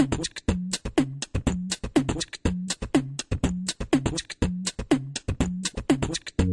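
Background music with a quick, steady percussive beat: sharp clicks and hissy hits several times a second, a falling boom about once a second, and a low bass note switching between two pitches.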